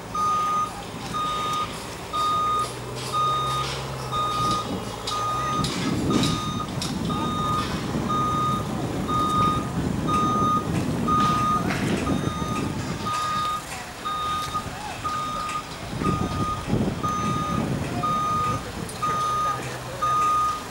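A construction vehicle's reversing alarm beeping steadily, about once a second, each beep a single high tone. Under it a heavy engine runs, growing louder and rougher for a few seconds around the middle and again near the end.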